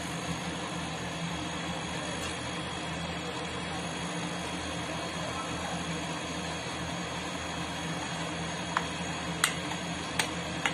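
Mustard seeds in hot oil and ghee starting to splutter for the tempering: a few sharp pops near the end, over a steady mechanical hum.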